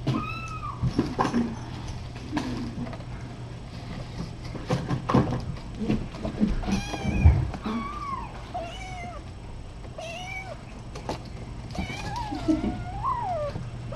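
Kittens meowing repeatedly, short high-pitched calls that rise and fall, with scattered knocks from the kittens' play and a steady low hum.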